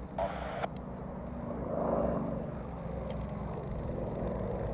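Distant light propeller aircraft's piston engine droning, swelling about two seconds in and then easing, with a short burst of radio hiss right at the start.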